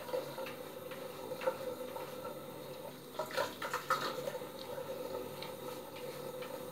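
Three-bladed cartridge razor scraping over a gel-lathered scalp in short strokes, with a quick cluster of scratches a little past the middle, over a steady low hum.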